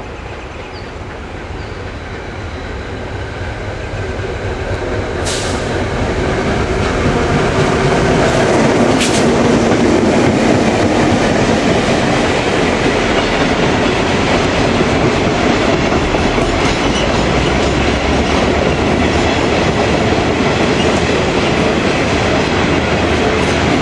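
A diesel locomotive hauling a cattle train approaches and passes close by, growing steadily louder for the first eight seconds or so. Its wagons then roll past with a steady clatter of wheels over the rails. Two sharp clicks come about five and nine seconds in.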